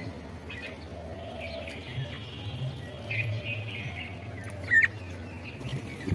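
Small birds chirping: repeated short high calls, with one louder sharp call near the end, over a low steady hum.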